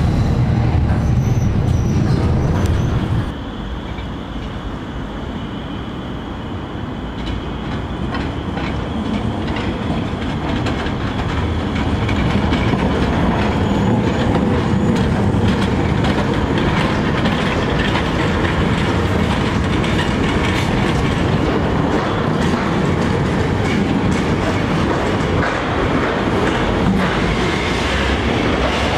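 Electric trams running on street track: steel wheels rumbling and clicking over rail joints and points, with wheel squeal on the curves. The sound changes suddenly about three seconds in, from the heavier rumble heard aboard a tram to trams passing.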